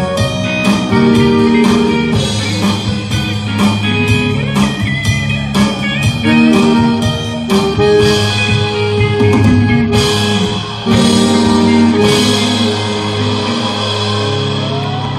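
Live band playing: strummed acoustic guitar with electric guitar and bass over a drum kit keeping a steady beat.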